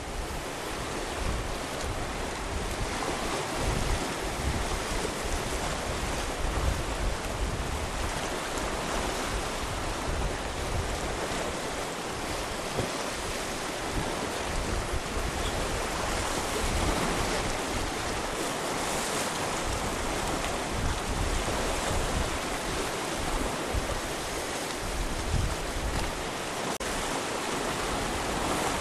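Sea surf washing against rocks, a steady rush of noise, with wind gusting on the microphone.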